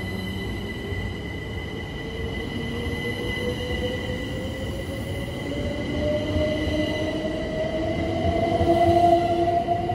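Southern Class 377 Electrostar electric train pulling out and accelerating: the traction motor whine rises steadily in pitch over the rumble of the wheels, with steady high tones above. It grows louder toward the end.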